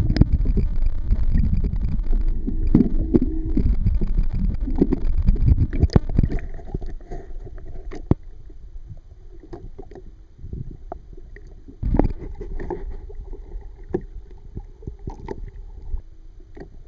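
Low, muffled rumbling and gurgling of water around a submerged microphone for the first six or seven seconds. Then quieter water lapping along a small boat's hull, with scattered knocks; the loudest knock comes about twelve seconds in.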